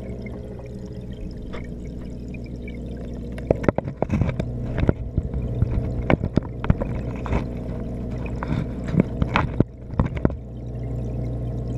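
Aerated aquarium water heard from inside an underwater camera housing: a steady muffled bubbling wash with a low hum. From about three and a half seconds in until about ten seconds in, irregular sharp clicks and knocks sound over it.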